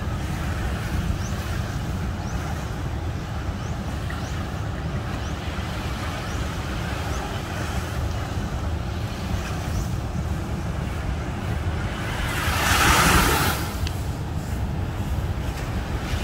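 Ocean surf breaking on the reef offshore, a steady wash of water over a low rumble of wind on the microphone. A louder rush of water swells up about thirteen seconds in, then falls back.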